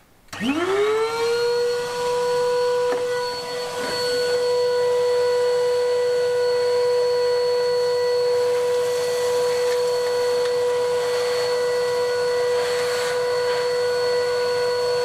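Wet-and-dry shop vacuum switched on: its motor whine rises in pitch over about a second, then runs steady as the hose is worked over a rubble stone wall to clear the dust. The level dips briefly twice in the first few seconds.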